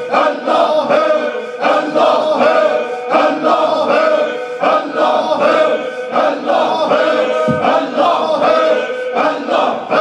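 A group of men chanting Sufi dhikr together in unison, the repeated phrase pulsing in a steady, even rhythm.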